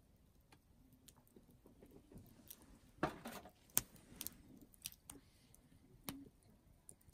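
Whisky glass tumbler set down on a wooden table: a short rustle of handling about three seconds in, then a sharp knock, with a few lighter clicks and knocks after.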